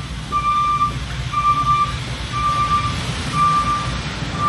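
Delivery truck's backup alarm beeping about once a second, a single steady tone, over the low rumble of the truck's running engine as it reverses to the open door.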